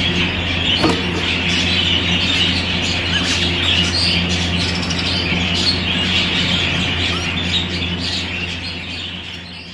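Exhibition budgerigars chattering and warbling continuously, a dense mass of small chirps and squawks, over a steady low hum; it all fades away near the end.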